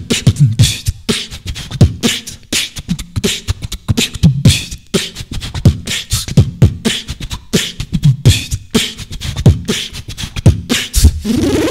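Beatboxing: a fast vocal beat of mouth-made kick drums, snares and clicks in a steady rhythm. A sung or voiced tone comes in at the very end.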